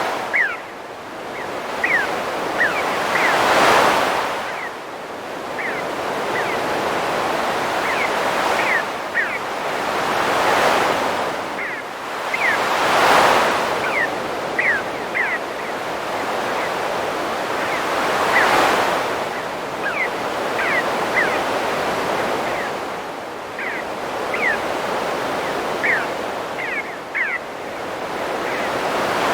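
Ocean waves breaking and washing in, swelling about every four to five seconds, with birds calling in short, high, falling chirps throughout.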